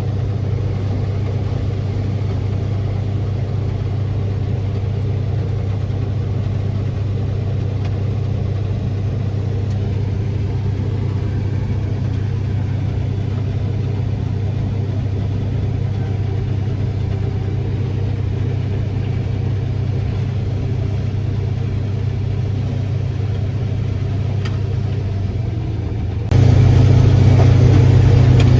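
Farm machine engine running steadily with a low, even hum. About 26 seconds in, it cuts abruptly to a louder engine sound.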